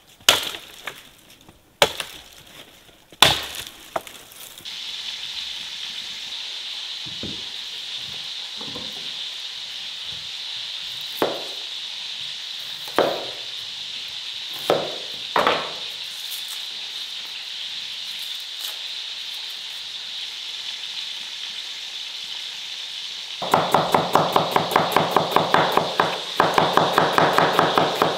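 A few sharp knocks, then a steady hiss with occasional light knocks. Near the end, a kitchen knife slices an onion on a wooden cutting board in quick, even strokes.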